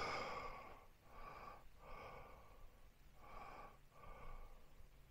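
A person breathing audibly in and out close to a clip-on microphone: a run of faint breaths, about one a second.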